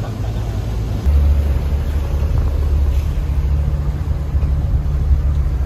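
An engine running under way: a steady low rumble that grows louder about a second in.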